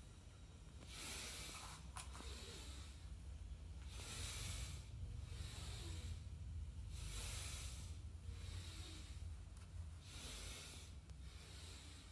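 A person's breathing, in and out in an even rhythm, one breath sound about every second and a half, paced with repeated half squats: inhaling going down, exhaling coming up. A single faint click about two seconds in.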